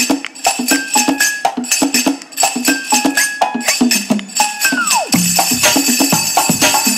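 Recorded dance music played over a loudspeaker: a fast, even rhythm of hand-drum strokes and jingling percussion with short high notes. About halfway through, a note slides steeply down in pitch into a low held note, and the percussion turns denser.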